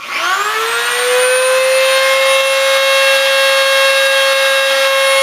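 Dremel rotary tool switched on, spinning up within about a second and then running at a steady high-pitched whine.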